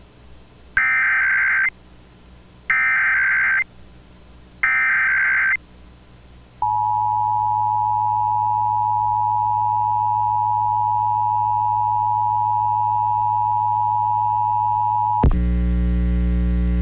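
Emergency Alert System header: three one-second bursts of warbling SAME data tones, about a second apart, then the steady two-tone attention signal held for about eight and a half seconds. Near the end the tone cuts off into a steady mains hum.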